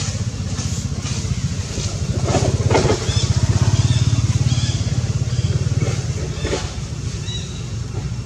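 A small engine running steadily, swelling about two seconds in and easing off after the middle.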